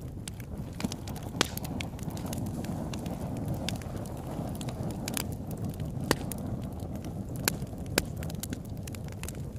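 Fire burning with a steady low rumble and scattered sharp crackling pops, a few louder snaps among them.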